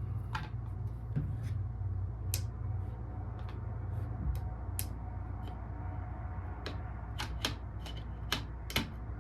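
Irregular light clicks and taps of metal AR-15 parts being handled and fitted together during reassembly, over a steady low hum.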